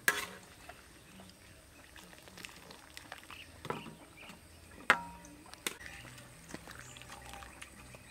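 Wire spider strainer knocking against a metal wok and tray while scooping in a steaming pot: four sharp metallic clinks, the loudest about five seconds in, with a short ring.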